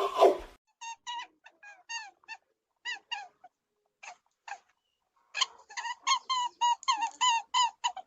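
A small animal giving short, squeaky pitched calls, scattered at first and then in a quick run of about three a second from about five seconds in. It is preceded at the very start by the end of a louder, noisy sound.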